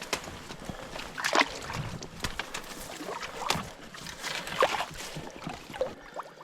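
Water sloshing, with a handful of small splashes about a second apart.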